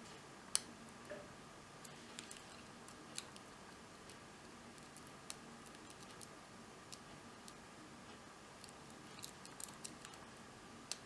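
Faint, irregular metallic clicks of a pick and tension wrench working the pins inside a Papaiz 16-pin cruciform padlock during single pin picking. There are about a dozen separate clicks, the sharpest about half a second in, and a quick cluster near the end.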